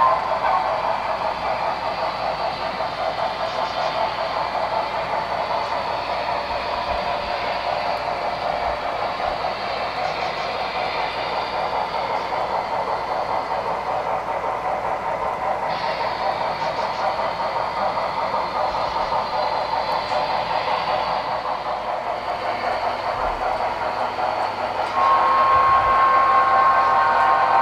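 Sound decoder of an HO-scale Broadway Limited Texas & Pacific steam locomotive model playing a steady, rapid steam exhaust chuff through its small speaker. A whistle comes in near the end and holds.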